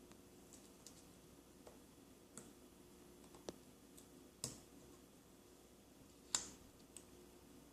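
Light, irregular clicks and taps of small phone parts and tools being handled while a part is pressed into an iPhone 4S housing. Two clicks stand out, about halfway through and, loudest, near the end.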